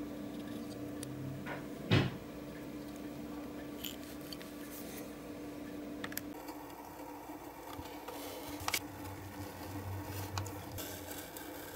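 Quiet handling noises over a steady low hum. One sharp click comes about two seconds in; the hum drops away about six seconds in, and near the end there is faint scraping with a few ticks as a craft knife cuts glossy cardboard along a metal ruler.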